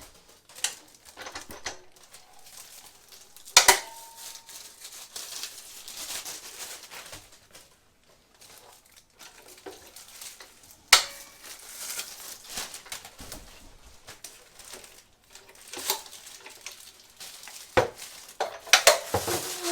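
Metal mitre saw stand being handled as its legs are opened: scattered metallic clanks and knocks, one about three and a half seconds in ringing briefly, and a quick cluster near the end, with light rattling and handling noise between.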